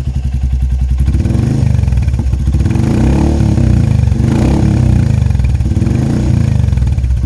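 Royal Enfield Meteor 350's single-cylinder engine through a straight-through Red Rooster exhaust with the baffle removed, revved in several throttle blips, its note rising and falling over a steady beat.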